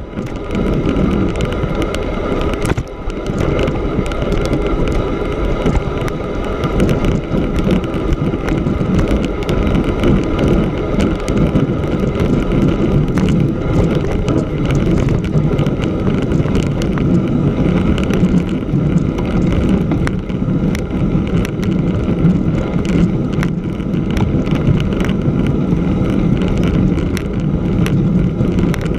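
Bicycle riding over snow-covered lake ice: the wide knobby tyre rumbling over packed snow, with wind on the microphone, steady throughout apart from a brief dip about three seconds in.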